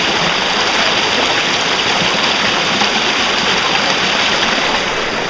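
Steady rush of a stream flowing out of a cave mouth over rocks.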